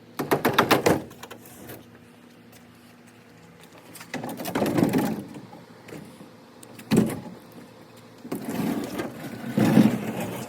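Handling noises from unpacking a crated machine: a short rapid rattle near the start, then bouts of scraping and rustling with a sharp knock partway through.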